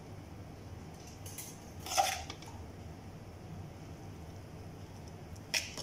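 Serving spoon knocking against a stainless steel pot as rice is spooned in: a sharp clink about two seconds in, the loudest sound, and a shorter one near the end.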